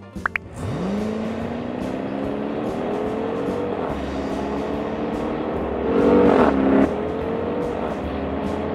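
Car engine sound effect: an engine pulling away, its pitch climbing slowly and steadily, with a louder brief rev about six seconds in. A short rising chirp comes just before it.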